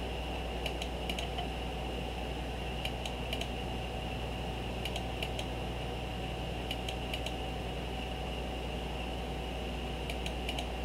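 Computer mouse clicks in small clusters, four or five times, over a steady low electrical hum.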